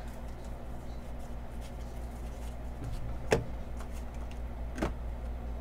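Two short taps about a second and a half apart, starting about three seconds in, from trading cards and foil packs being handled and set down on a table, over a steady low hum.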